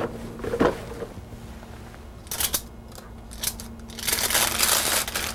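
A few light knocks as silicone oven mitts are pulled off and set down on a wooden counter. Then, about four seconds in, parchment paper rustles and crinkles as it is gripped to slide a baked loaf off a baking sheet.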